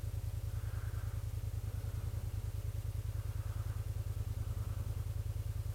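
Kymco AK550 scooter's parallel-twin engine idling steadily with an even, fast pulse while the bike stands still.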